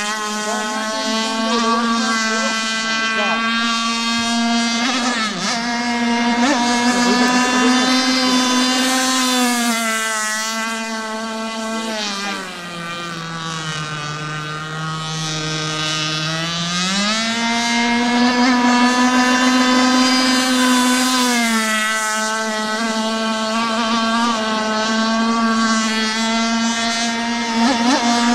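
Radio-controlled shallow-vee boat powered by a stock Zenoah 260 two-stroke petrol engine, running flat out with a steady high-pitched buzz. About halfway through the pitch drops for a few seconds, then climbs back up and holds.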